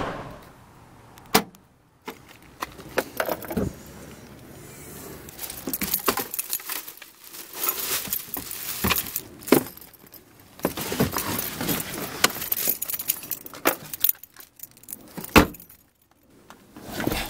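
Car keys and a key fob jangling and clicking as they are handled, among irregular rustles and knocks from things in a hatchback's trunk. There are a few sharper knocks along the way.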